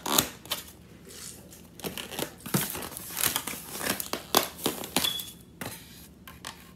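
Irregular crinkling and clicking from a large foam drink cup being handled, with a brief high squeak about five seconds in.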